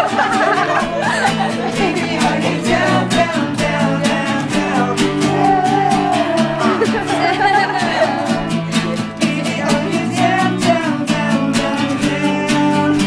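Two acoustic guitars strummed with several voices singing along, and hands tapping on a wooden coffee table as percussion, in a steady rhythm.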